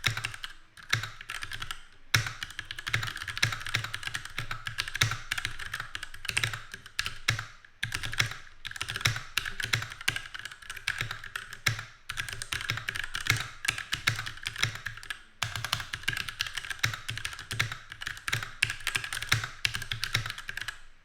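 Fast, continuous typing on a Keychron K6 65% mechanical keyboard with Gateron red linear switches: a dense patter of key clicks, broken by a few brief pauses.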